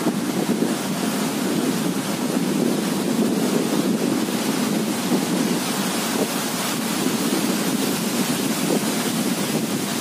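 Strong wind blowing through trees and buffeting the microphone: a steady rushing noise.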